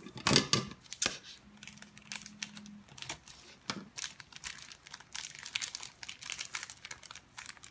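Small plastic packet crinkling and rustling in irregular short crackles as it is handled and opened, with a couple of sharper snaps in the first second.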